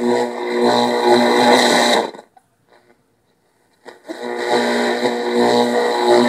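Philco Sportsman portable radio playing music from an AM station through its speaker. The sound cuts out suddenly for about two seconds and comes back while the tuning dial is turned. The owner hears it as a set that will need repairs and a tune-up.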